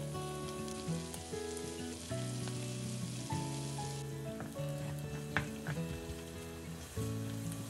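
Food sizzling in hot fat in a frying pan, over gentle background music with a slow melody. The sizzling cuts off about halfway through, and a few light clicks follow.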